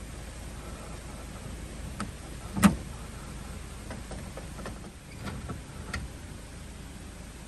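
A few short knocks over a steady hiss, with one sharp thump, the loudest, about two and a half seconds in and a cluster of smaller clicks and knocks a little later.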